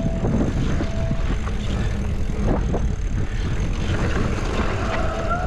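Mountain bike riding down a rough dirt trail: steady wind rumble on the camera microphone and rattling clicks from the bike. A short squealing tone sounds near the end, bending slightly upward.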